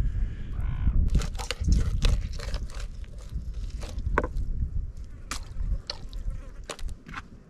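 Scattered clicks and knocks as a fish fillet is handled and cut with a knife on a plastic cutting board, over a low rumble of wind on the microphone.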